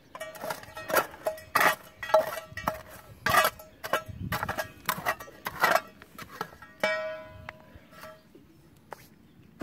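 A hand tool working loose stone and earth in a narrow cave entrance: repeated sharp knocks and scrapes against rock, most ringing briefly on the same metallic note, with one longer ring about seven seconds in.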